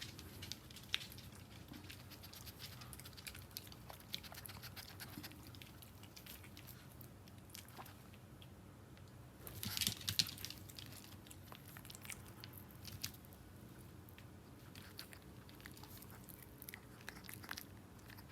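Small dog chewing and biting food: faint, irregular clicks and crunches, with a louder cluster about halfway through.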